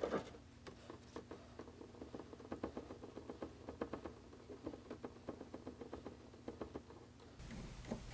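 Paintbrush mixing watercolor paint in a plastic palette well: faint, irregular little clicks and scrapes, several a second, as the brush works against the plastic.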